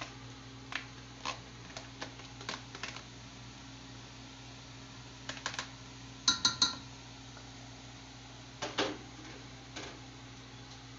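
Irregular light taps and clicks of a black tray knocking against the rim of a nonstick pot as chopped onions are pushed off it into the pot, with a louder ringing clank of the pot about six seconds in and another knock near nine seconds.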